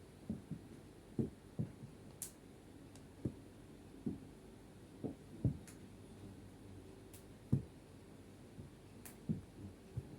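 Irregular soft, dull thuds, about one or two a second, with a few brief sharp clicks between them.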